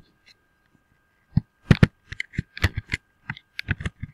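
Typing on a computer keyboard: a quick, irregular run of key clacks that starts about a second and a half in.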